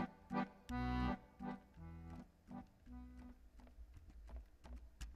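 Piano accordion playing a short instrumental interlude: detached chords over bass notes, a loud chord about a second in, then softer, sparser notes for the rest.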